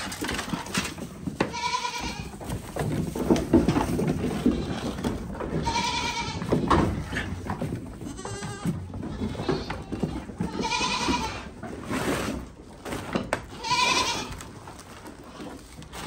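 Goats bleating about four times, high wavering calls, over the scuffling and clatter of the herd jostling. They are calling for a handful of crushed corn that only some of them are getting.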